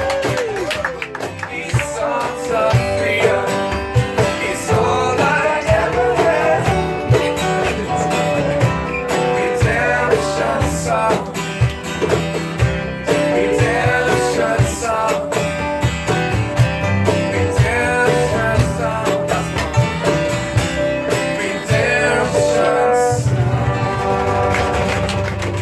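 Live song: a voice singing over guitar, at a steady, even level.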